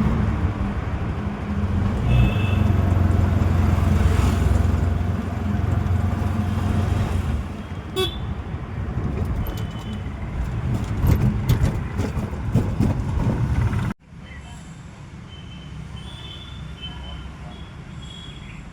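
Road traffic: a loud vehicle engine rumble with short horn toots. About two-thirds of the way through the sound cuts abruptly to quieter traffic noise, with several more brief horn toots.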